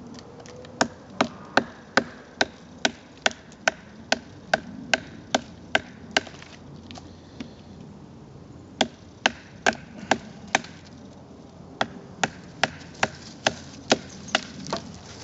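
Mora Bushcraft knife blade chopping into a hand-held wooden stick: quick, sharp strokes about two and a half a second, in three runs with short pauses between them.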